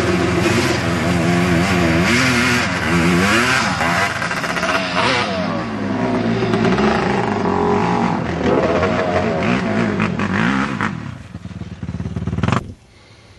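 Sport ATV engine revving hard on a hill climb, its pitch swinging up and down repeatedly as the throttle is worked, then cutting off suddenly near the end.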